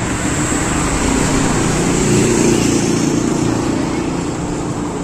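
Steady roadside traffic noise, with a motor vehicle engine growing louder around two seconds in as it passes.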